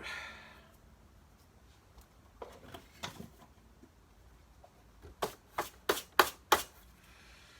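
Parts of an upright vacuum cleaner being handled during a repair: a few light knocks, then, about five seconds in, a quick run of about five sharp clicks.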